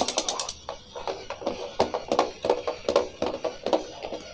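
Battery-operated crawling Hulk soldier toy moving across a tabletop under its own power: irregular clicking and knocking from its plastic gearbox and limbs, with electronic sound-effect tones from its built-in speaker. A fast, even rattle cuts off about half a second in.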